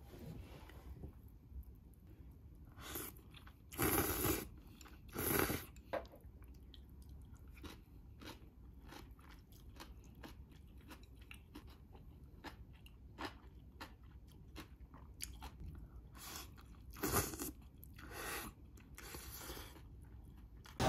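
Close-up eating sounds: chewing and crunching of noodle soup and kimchi, with small irregular clicks of chopsticks and a wooden spoon against a stoneware pot. Louder half-second bursts come about four and five seconds in and twice near the end.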